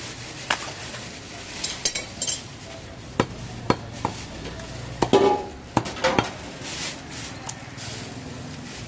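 Scattered knocks and metal clinks of a butcher's knife and cleaver on a wooden log chopping block as a goat carcass is cut into pieces. The loudest clatter, with a brief metallic ring, comes about five seconds in.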